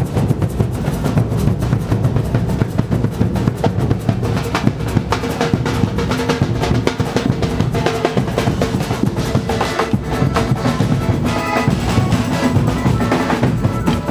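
Marching band drum line playing: big bass drums and snare drums beating a steady, busy rhythm with rolls. A few pitched notes come in over the drums in the second half.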